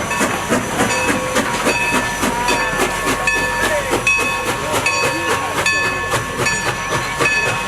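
Passenger rail car running along the track, its wheels clicking and the car rattling steadily, with many short high-pitched rings and squeaks.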